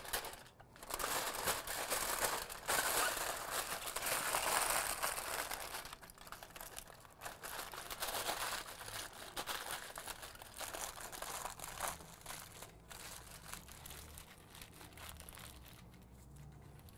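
Heavy aluminium foil crinkling and crumpling as it is folded and pressed tight around a pork shoulder. Loudest over the first six seconds or so, then softer and more scattered.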